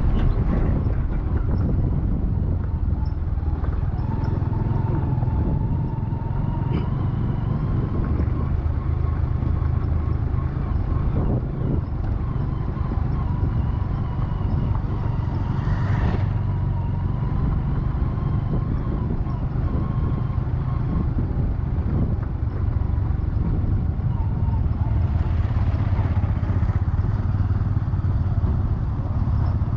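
Steady running of a road vehicle with a heavy low rumble of engine and road noise. A faint steady whine runs through the middle stretch.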